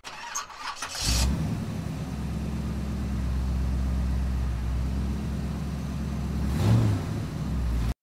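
Ford Explorer's engine catching about a second in and settling into a steady idle, with a brief small rise in revs near the end.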